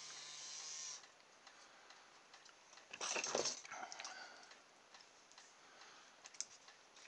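Small vibrating motor of an Oral-B Pulsar electric toothbrush buzzing steadily, stopping abruptly about a second in. A few clicks and rustles of handling follow around three seconds in.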